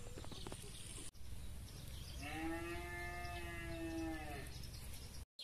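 A cow mooing: a single long, smooth call of about two seconds in the middle, over a steady low background rumble.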